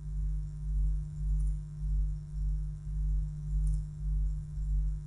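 Low steady background hum with a steady tone just above it, wavering in loudness about twice a second, and a faint high tick every couple of seconds.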